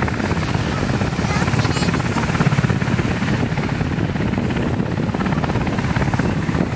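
Coast Guard helicopter flying low over the sea, its rotor chopping in a fast, even beat.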